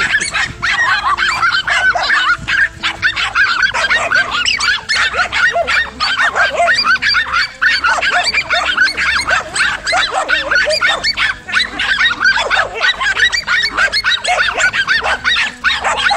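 Several dogs barking and yelping in a dense, unbroken frenzy, calls overlapping with no pause: a pack of dogs fighting.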